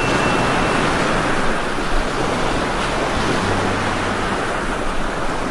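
Heavy rain pouring onto leafy plants: a steady, dense hiss that cuts off suddenly near the end.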